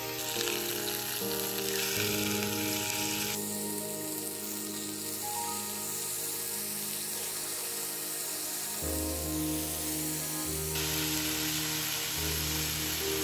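Slices of pork belly sizzling as they fry in a round grill pan on a portable gas stove, under background music. The sizzle is strongest in the first few seconds and again near the end.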